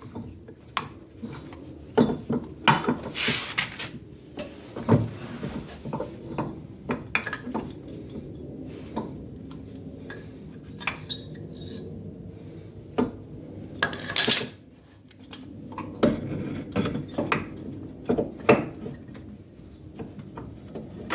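Metal tools and brake parts clinking and knocking at irregular moments, with two short scraping rushes, one about three seconds in and one near the middle.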